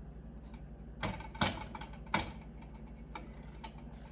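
A few light clicks and knocks from handling a pan and cooking utensils, three louder ones in the middle, over a low steady hum.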